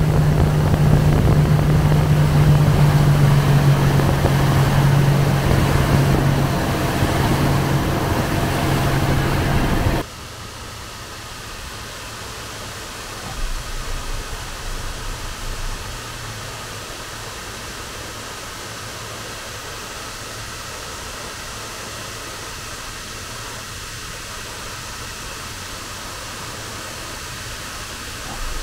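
A motorboat engine running under way with wind and water noise, cutting off abruptly about ten seconds in. A quieter, even, steady hum follows.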